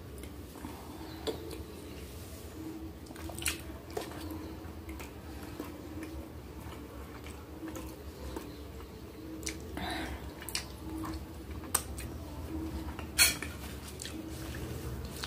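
Metal fork clinking and scraping against a glass baking dish, with chewing between the clinks; a single sharp clink about 13 seconds in is the loudest.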